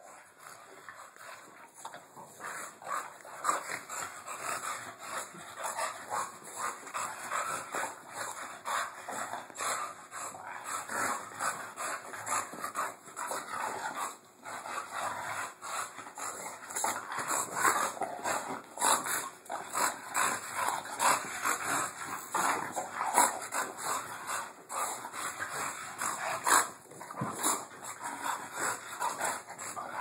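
Two bulldogs play-fighting, making an unbroken stream of short, irregular vocal noises with frequent louder peaks. The noises build up over the first couple of seconds.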